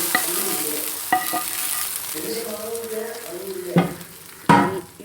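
Hot ghee with fried coconut pieces, cashews and raisins tipped into the milk payasam, sizzling and dying away, then a spoon stirring with light clicks and two sharp knocks against the pot near the end.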